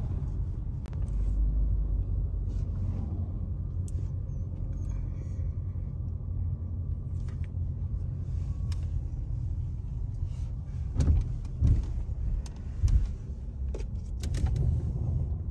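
Car driving slowly, heard from inside the cabin as a steady low rumble from the engine and tyres. Scattered light clicks run through it, and there are a few heavier low thumps about eleven to thirteen seconds in.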